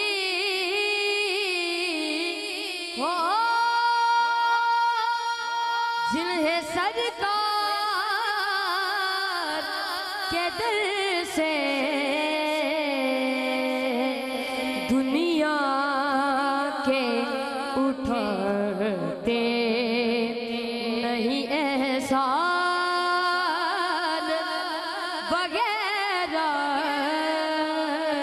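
A boy singing a naat solo, in long held notes and wavering melismatic runs.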